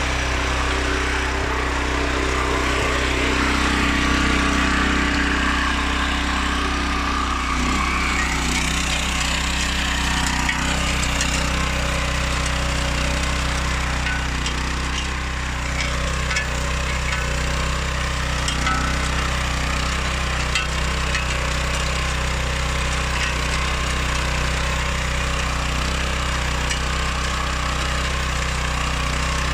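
The Oleo-Mac MH 150 RK tiller's K700 H petrol engine running steadily. Its note shifts during the first several seconds, then settles to an even drone with a light mechanical rattle.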